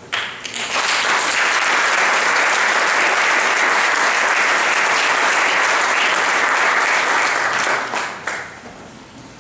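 Audience applauding: clapping swells within the first second, holds steady, then dies away about eight seconds in.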